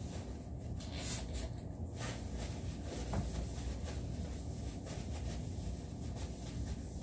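A short hiss from a trigger spray bottle of cleaner about a second in, then the soft rubbing of a cloth wiping down a wooden chair, over a steady low background rumble.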